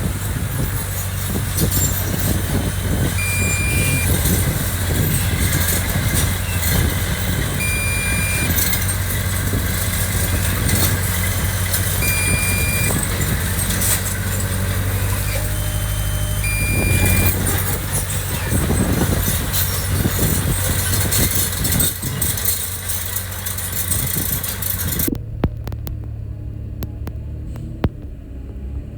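Heavy construction machine's diesel engine running steadily under load. A short electronic beep sounds about every four and a half seconds through the first two-thirds.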